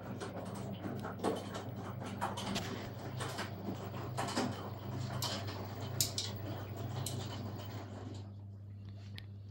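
LG F1409TDS6 direct-drive front-loading washing machine running a wash cycle: a steady low hum with irregular swishes and knocks from the drum, which quiet down near the end, leaving the hum.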